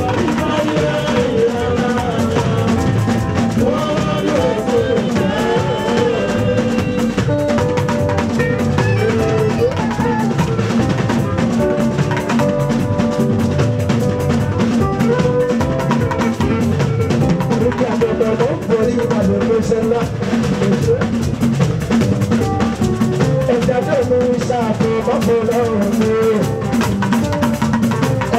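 Live fuji band music with drums and percussion driving a steady beat under electric guitars and keyboard, and a male singer's voice over it at times.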